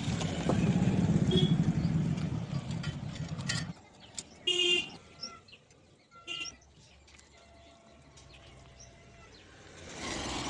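A motor vehicle's engine rumbling loud and low, which cuts off abruptly a few seconds in. It leaves quieter background with a couple of short high-pitched toots or calls, and the rumble comes back near the end.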